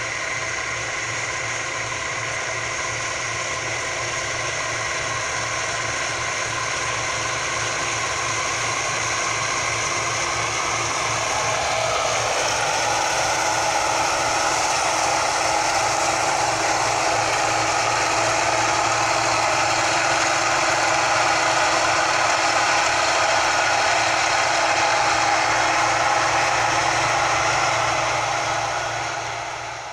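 Bizon ZO56 Super combine harvester running steadily while cutting triticale, its engine and threshing gear working together. It grows louder about halfway through as the machine comes close and passes, then fades out at the very end.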